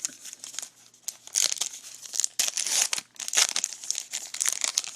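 Crinkling and tearing of a baseball card pack's wrapper being opened, heard as several bursts of crackly rustling.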